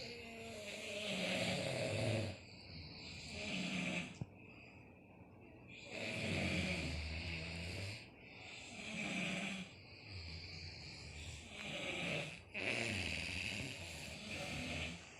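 Several sleeping people snoring, one snore after another every two to three seconds.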